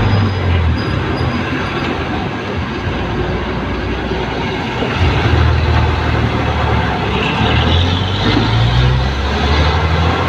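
Jeepney's diesel engine running under way, heard from inside the vehicle with steady road noise. Its low drone eases for a few seconds, then grows stronger again about halfway through.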